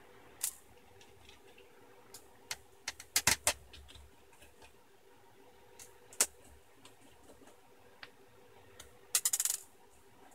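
Scattered small hard clicks and taps of hand tools and tiny screws handled on a desk, a few at a time, with a quick rattling run of ticks near the end. A faint steady hum lies underneath.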